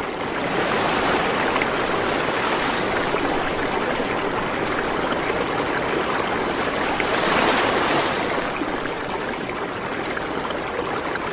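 A steady rushing noise with no pitch or beat, swelling slightly about seven seconds in.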